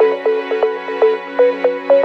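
Electronic background music: a melody of short, sharply struck notes, several a second, over a steady low held tone.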